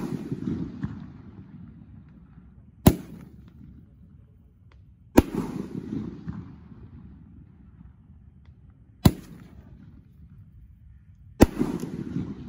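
Large 1.9-size Roman candle firing shots that burst overhead: four sharp bangs a few seconds apart, each trailing off in a rumble.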